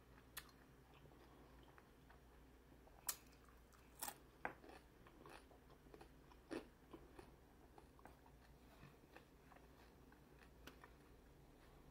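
Faint chewing of crunchy tortilla nacho chips, with about six short, sharp crunches spread through it.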